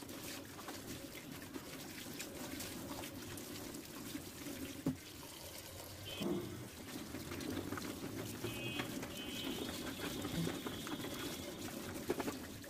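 Tap water running steadily into a plastic colander of chopped bottle gourd leaves in a stainless steel sink, as hands squeeze and rinse the wet leaves. A couple of light knocks about five and six seconds in, and a few small clicks near the end.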